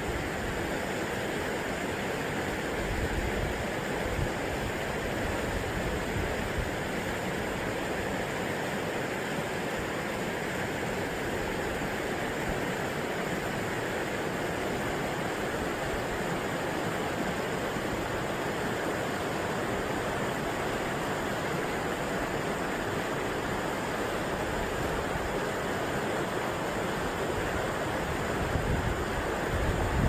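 River water rushing over boulders in shallow rapids: a steady, even rush.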